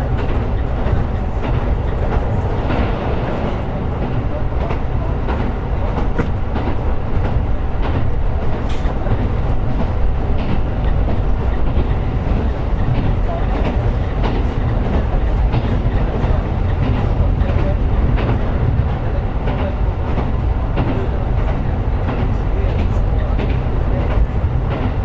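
KiHa 125 diesel railcar running along the line: a steady rumble of engine and wheels on rail, with many small clicks and knocks from the wheels over the track.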